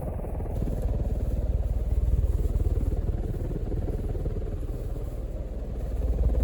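Casablanca ceiling fan running on high, its downdraft rumbling and fluttering steadily on the microphone, with a plastic bag blowing around in the draft.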